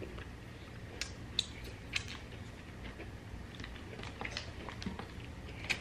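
Close-up chewing and biting of crisp thin-crust pizza: scattered crunches and mouth clicks, the sharpest about one, one and a half and two seconds in and again near the end, over a low steady hum.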